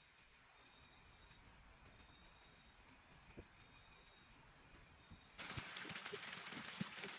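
Insect trilling steadily in a high, even tone, the sound of a cricket or cicada chorus in forest. About five seconds in it cuts off abruptly, giving way to a steady hiss with small clicks.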